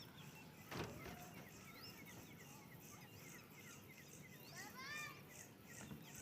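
Faint background of small birds chirping in short, repeated calls, with a single click about a second in.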